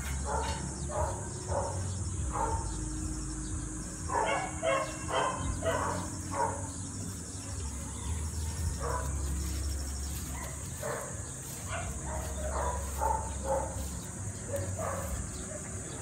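Dogs barking in short, repeated barks, with quick runs of barks about four seconds in and again past the middle, over a steady high insect drone.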